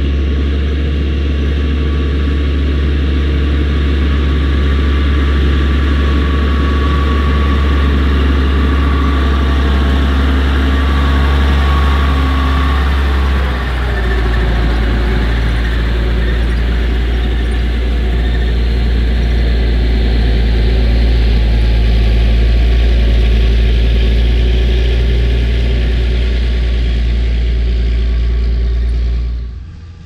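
Case IH 9380 QuadTrac's six-cylinder 14-litre Cummins diesel running with a loud, steady low drone, its tone shifting slightly about halfway through.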